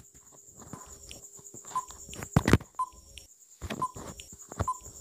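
Quiz countdown-timer sound effect: short clicks and brief beeps repeating about once a second.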